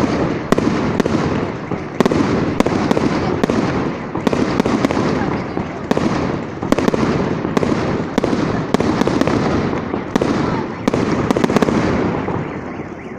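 Fireworks display: shells bursting in a rapid string of sharp bangs, roughly one to two a second, over a dense continuous din, easing off near the end.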